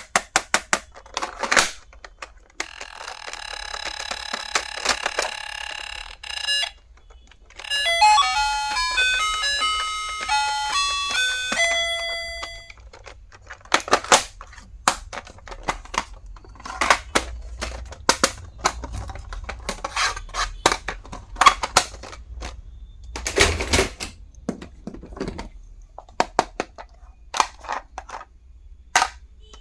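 A small electronic sound chip in a toy gadget sounds a buzzing alarm tone for about four seconds, then plays a short beeping tune of single notes for about five seconds. Clicks and plastic handling knocks come before and after.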